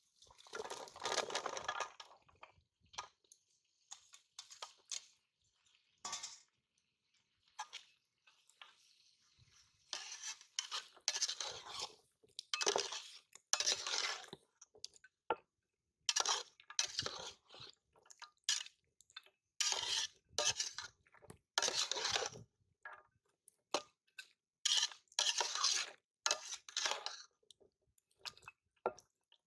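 Jackfruit pieces tumble from a bowl into a pot of simmering curry, then a metal spatula stirs them in short, repeated strokes, scraping and clinking against the metal pot with pauses between.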